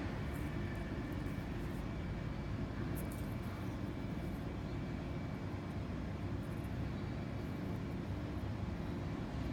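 Steady low background rumble, with a few faint small ticks from fishing line and rubber float stoppers being handled.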